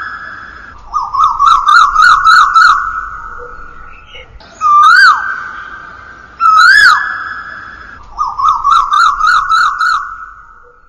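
Asian koel (koyal) calls with a long echo trailing after each. A quick run of about seven short rising whistled notes comes first, then two single swooping whistles, each held briefly, then another quick run near the end.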